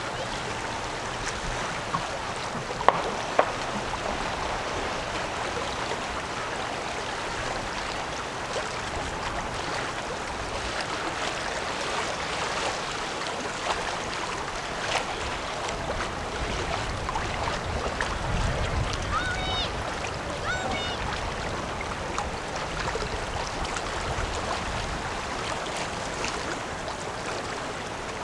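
Steady rush of river water moving along the shore, with a couple of sharp clicks about three seconds in and a few short high chirps about twenty seconds in.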